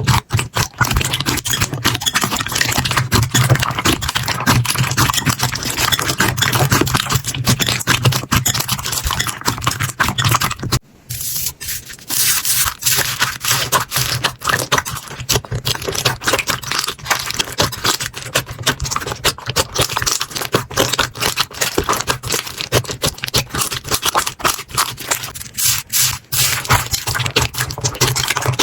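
Slime being squeezed, poked and stretched by hand: a dense, irregular run of sticky clicks and crackles, with a brief break about eleven seconds in.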